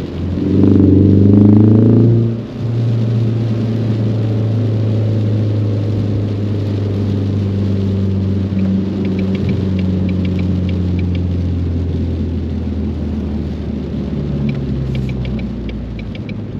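A Ford Mustang's four-cylinder EcoBoost engine revs up hard for about two seconds. The revs then drop sharply and it settles into a steady drone under way. A light, rapid ticking comes in around the middle and again near the end.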